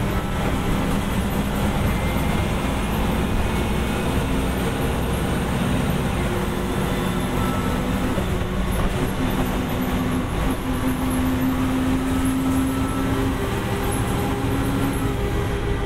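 A 1989 Gillig Phantom transit bus under way, its Detroit Diesel Series 50 diesel engine running with road and drivetrain noise. A steady hum shifts in pitch a few times as the bus changes speed.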